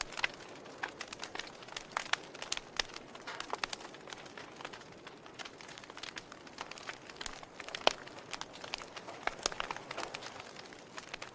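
Fire crackling: irregular sharp snaps and pops over a soft steady hiss, with one louder pop about eight seconds in.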